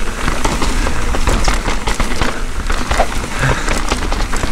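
Mountain bike rattling down a rough trail: a rapid, irregular clatter of knocks from tyres, chain and frame over rocks and roots. Constant low wind rumble on the chin-mounted camera's microphone.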